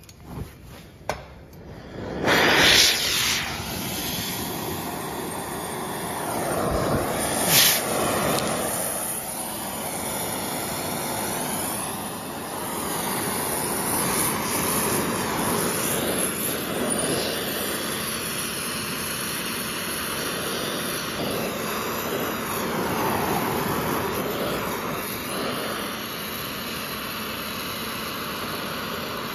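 Oxy-fuel gas torch flame hissing steadily while it heats a seized bearing race in a forklift axle to free it. A few small clicks come first, the flame starts about two seconds in, and there is one sharp crack about seven seconds later.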